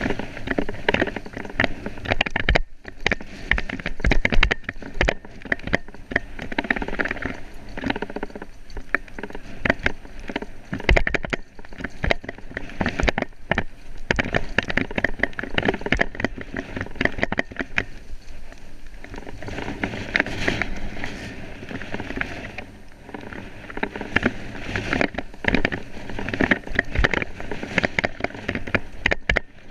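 Mountain bike riding over a rough dirt trail: a continuous rattle and clatter of tyres over dirt and stones and the bike jolting, dense with clicks and knocks throughout.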